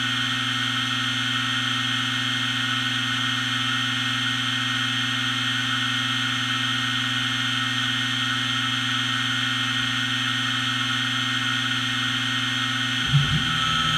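Spindle motor of a modified OpenBuilds Minimill CNC mill running at a steady pitch, a constant electric hum with a higher whine over it. About a second before the end it cuts off with a short knock.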